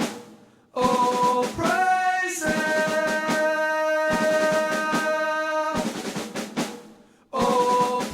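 Background music with a drum kit and held melodic notes, in a repeating phrase that briefly drops out just after the start and again near the end.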